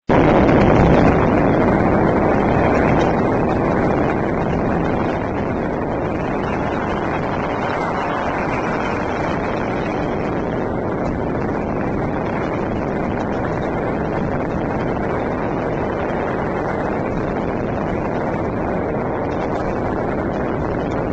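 Dense, continuous barrage of Spring Festival fireworks and firecrackers from many directions at once, blending into a steady rumbling crackle with no single bang standing out. It is loudest in the first few seconds, then settles to an even level.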